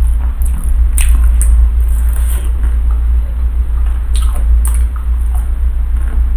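Close-miked eating and chewing of cireng, a chewy fried tapioca fritter filled with shredded chicken. Several sharp mouth clicks come over a steady low hum.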